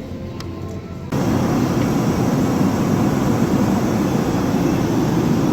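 Steady, loud rumble of a passenger airliner, starting abruptly about a second in.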